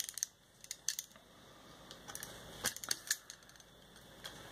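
A snap-off craft knife gives scattered light clicks and ticks as it is handled and its fresh blade works on paper, with quiet stretches between.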